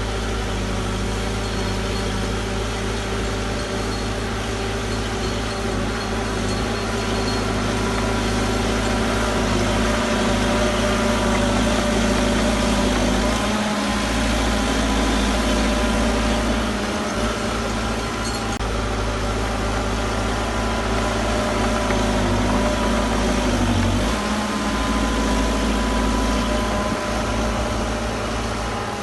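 Heavy diesel earthmoving machinery running steadily, a deep engine note with a constant drone, its level rising and falling slightly as the load changes.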